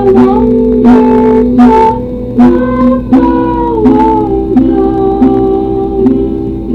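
Guitar being played slowly: a plucked note or chord about every two-thirds of a second, each left ringing into the next as a simple melody moves along.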